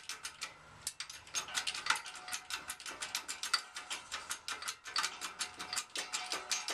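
Shop press being worked by its handle, giving a fast, even run of ratcheting clicks, about six a second, with a short pause about half a second in, as it bears down on a stuck gearbox output shaft.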